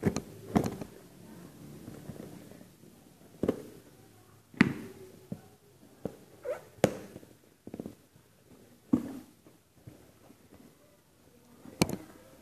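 Handling noise from a package being unwrapped close to the microphone: a string of sharp knocks and clicks at irregular times.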